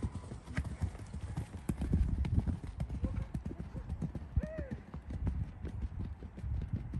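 Horse's hooves thudding on a sand arena surface, heard from the saddle of the horse being ridden.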